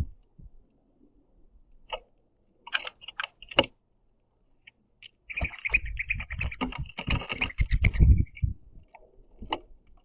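Birds pecking sunflower seeds off a wooden platform feeder: scattered sharp clicks and taps. About halfway through comes a busier stretch of bumps with a high, fluttering sound.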